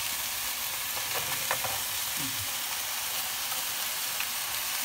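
Steady sizzle of hot oil: beef hamburger patties frying with sliced onions in a pan, beside a pot of French fries deep-frying in bubbling oil.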